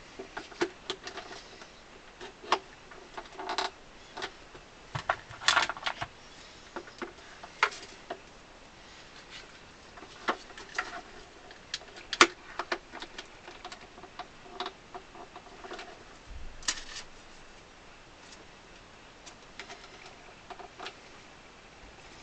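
Clamps being put on and tightened over a glued celluloid repair: irregular clicks, knocks and a few short scrapes as the clamps are handled and screwed down.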